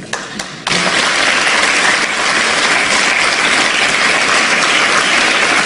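A large seated audience applauding, a dense steady clatter of many hands clapping that starts suddenly a little under a second in.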